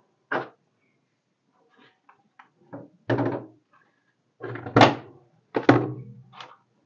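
Kitchen items being handled while adding baking powder to the dough: a series of small clicks and several louder thunks, the loudest about three and five seconds in.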